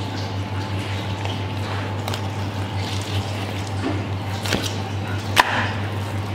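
Filleting knife slicing through a raw cod and the fish flesh being lifted and handled, soft wet squishing sounds over a steady low hum, with a few sharp clicks, the loudest about five seconds in.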